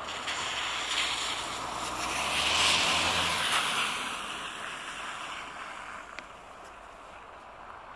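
Dassault Falcon 900EX business jet's turbofan engines passing on take-off: a rushing jet noise that swells to a peak about three seconds in, then fades away.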